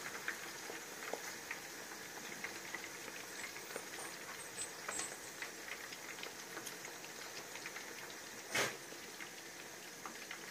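Chicken pakoras deep-frying in hot oil in a karahi: a faint steady sizzle with small crackling pops. A single sharp knock near the end.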